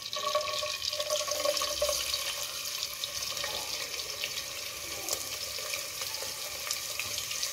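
Chopped garlic sizzling in hot sunflower oil in a nonstick pan: a steady hiss with scattered small pops.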